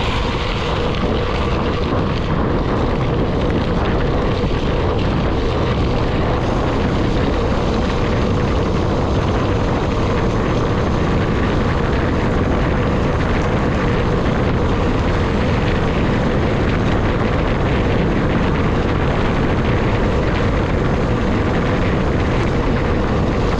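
Wind rushing over the GoPro's microphone during a fast downhill ride at about 55 km/h, a loud, steady roar with a faint steady hum underneath.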